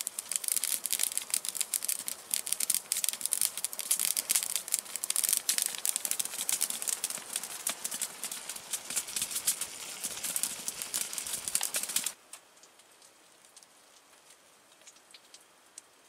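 Wood fire crackling in a homemade woodstove and burgers sizzling in a frying pan on its top: a dense run of sharp pops over a hiss that cuts off suddenly about twelve seconds in, leaving near silence with a few faint ticks.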